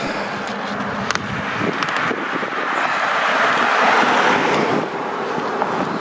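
A car passing on the street, its tyre and road noise swelling to a peak about four seconds in and then falling away.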